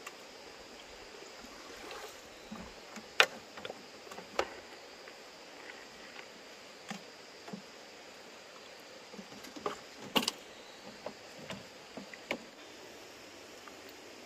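Irregular sharp clicks and knocks, the loudest about three seconds in and again about ten seconds in, over a steady background hiss.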